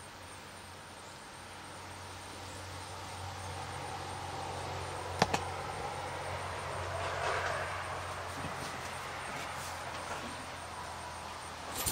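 A vehicle passing, growing louder to a peak about seven seconds in and then fading, over a steady low hum. A sharp click about five seconds in.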